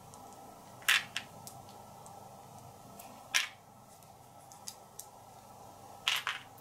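A few sharp clicks of small board-game pieces being handled and set down on a table. The loudest come about a second in and again about three and a half seconds in, with a quick run of clicks near the end.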